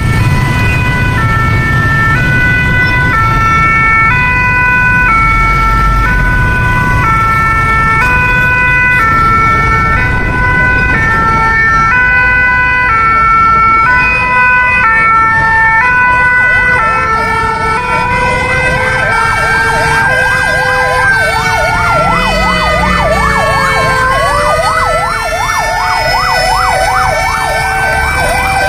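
Sirens of Japanese emergency vehicles. A two-tone hi-lo siren of the kind Japanese ambulances use alternates steadily. About midway, wailing sirens join it with slow rising and falling sweeps, followed by a fast yelping warble, all over a low engine rumble.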